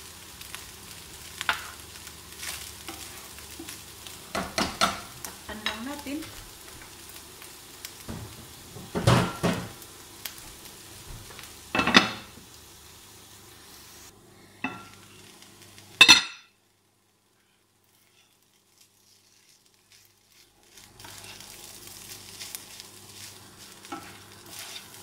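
Rice and chicken frying in pans on a gas stove, a steady sizzle, with a spatula scraping and clattering in a nonstick pan as beaten egg is stirred into fried rice. There are several sharp clatters of utensil and lid against the pan, one as a glass lid goes on about twelve seconds in. The sound drops out for several seconds after a loud clatter past the middle, then the sizzling and stirring come back.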